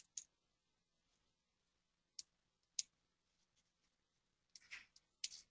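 Faint computer mouse clicks against near silence: single clicks a few times, then a quick run of several clicks near the end.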